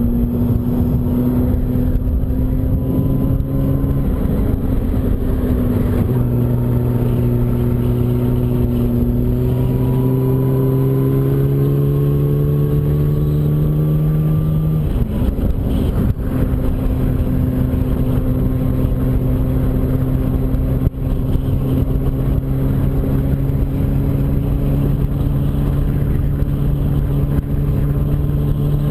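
Yamaha R1's inline-four engine running at highway speed under wind and road noise. The revs climb slowly for several seconds, dip sharply about halfway through, then hold steady.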